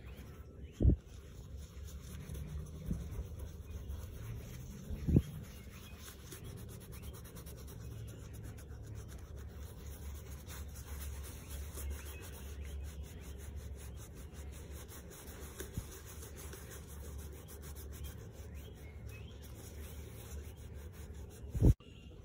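Gloved hands rubbing over the smooth leather of a handbag, a steady soft rubbing. A few short thumps, about a second in, about five seconds in and near the end, are louder than the rubbing.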